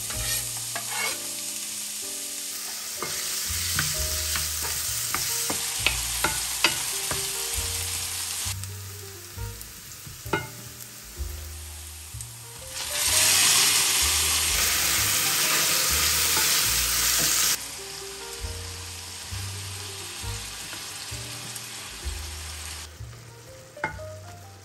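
Diced onion and garlic frying in olive oil in a stainless-steel pan, sizzling steadily, with the wooden spatula tapping and scraping the pan. About halfway through, the sizzle swells much louder for about four seconds as peeled tomatoes go into the hot oil, then drops suddenly. Near the end the tomato sauce simmers more quietly as a wooden spoon stirs it.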